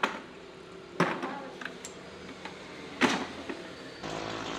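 Three sharp knocks, the second about a second after the first and the third two seconds later, then a steady motor hum setting in near the end.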